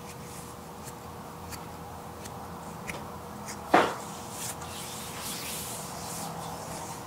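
Hands massaging a bare foot, giving soft skin-rubbing hiss and faint small ticks. Near the middle there is one brief, much louder sound that drops in pitch. A faint steady hum lies under it all.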